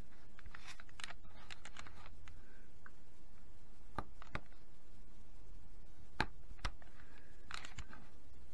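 Craft-knife blade cutting through the small wooden sprigs that hold a laser-cut wooden kit part in its sheet, pressing on a cutting mat. It gives short sharp clicks: a cluster in the first two seconds, then single clicks a second or two apart.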